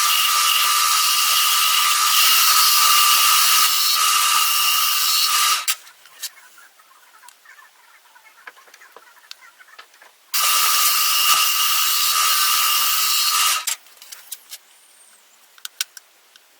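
Electric power tool running at full speed with a steady high whine, in two runs of several seconds with a pause between, each stopping abruptly. Light clicks and taps of handling fill the pauses.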